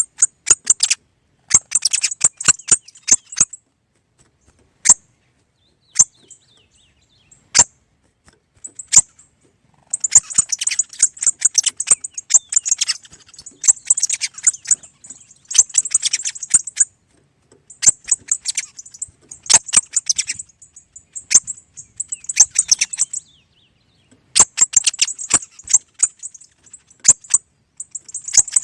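Small songbirds twittering in rapid high chirps, coming in bursts of a few seconds with quiet pauses between. Sharp single clicks and chips run through, standing alone in a quieter stretch from about four to ten seconds in.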